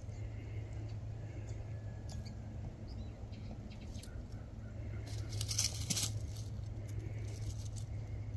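Faint crackling and rustling of dry leaves and pine needles as a cat noses and paws at the leaf litter, busiest about five to six seconds in, over a steady low hum.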